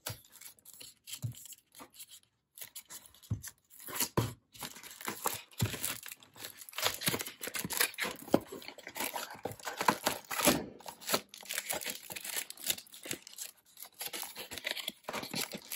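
Small cardboard retail box being opened by hand: its flap tearing and scraping free, with crinkling and handling rustles in irregular bursts that grow busier about halfway through.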